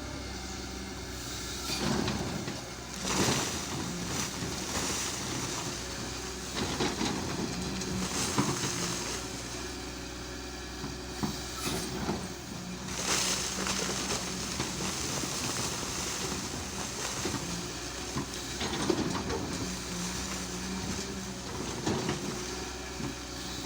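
Cat 320 hydraulic excavator's diesel engine running steadily under work, with repeated loud bursts of rock scraping and crunching every second or few as the bucket digs.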